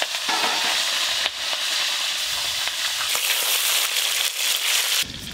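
Small whole pond fish sizzling in hot mustard oil in a steel wok, with a few clicks of a metal spatula against the pan as the fried fish are lifted. The sizzle drops away sharply near the end.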